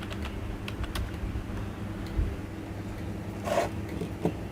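A steady low electrical hum with a few faint clicks, and a short rustle about three and a half seconds in.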